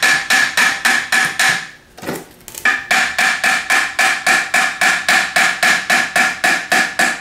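A ball-peen hammer tapping rapidly on the aluminium case of a GM CS144 alternator, about six ringing metallic taps a second, with a short pause about two seconds in. The taps are meant to break loose the corroded through-bolts that hold the two case halves together.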